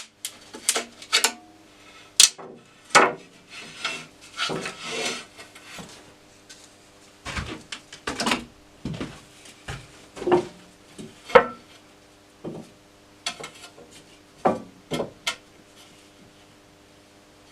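Irregular knocks, clinks and short scrapes of hard objects being handled and set down, thinning out near the end, over a faint steady hum.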